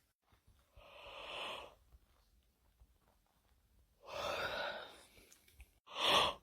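A person yawning, heard as three breathy, sigh-like exhales: one about a second in, one at about four seconds, and a shorter, louder one near the end.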